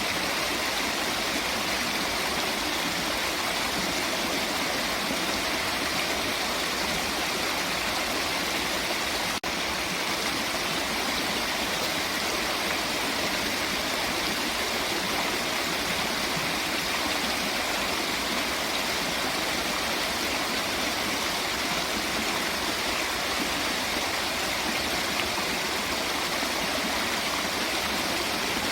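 Flowing water rushing steadily, an even hiss with no pauses. It breaks for an instant about nine seconds in.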